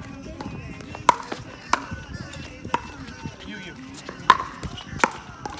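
A pickleball rally: paddles striking a hard plastic pickleball, with about five sharp, hollow pops at irregular gaps of roughly a second. The loudest comes about four seconds in, on an overhead smash.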